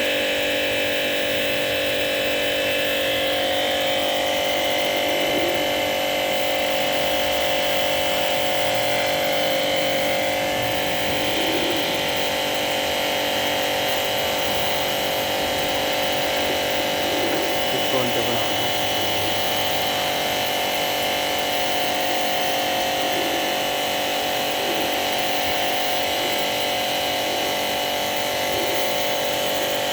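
A small electric motor running steadily with a constant whine.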